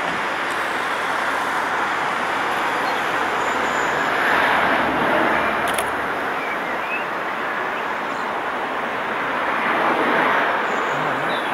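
Steady rushing steam noise from the Peppercorn A1 Pacific steam locomotive 60163 Tornado moving slowly, swelling twice, about four seconds in and again near the end, with no distinct exhaust beats.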